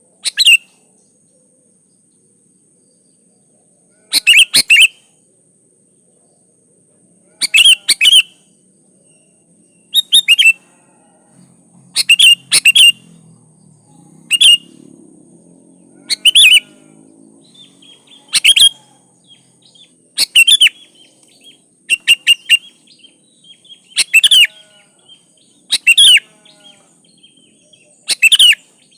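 Sooty-headed bulbul (kutilang) calling in loud, short bursts of two or three quick notes, repeated about every two seconds after a pause near the start.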